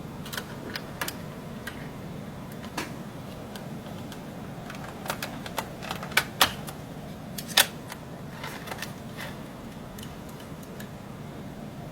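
Small electric drive motors of a 1/35-scale RC model tank running with a steady low hum, under irregular sharp plastic clicks and ticks, several of them louder around the middle.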